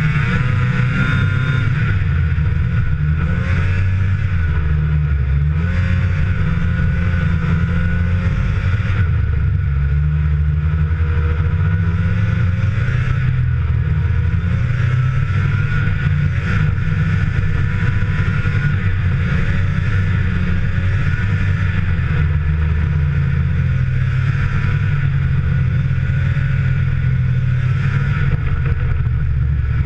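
Arctic Cat snowmobile engine running hard under way, its pitch rising and falling again and again as the throttle is worked, picked up from a handlebar-mounted camera.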